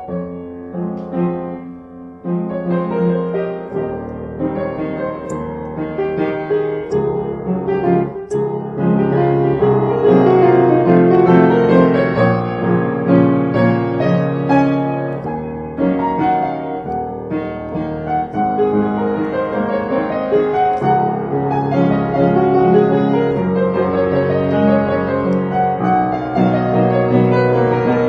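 Upright piano played solo: an improvised piece in three-four time, with bass notes under chords and melody. It grows fuller and louder a few seconds in.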